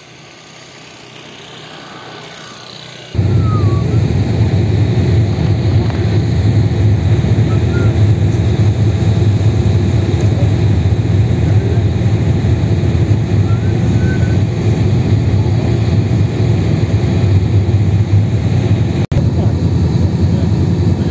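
Catamaran's engines running underway: a steady, loud low rumble that starts suddenly about three seconds in, after a quieter rising hum.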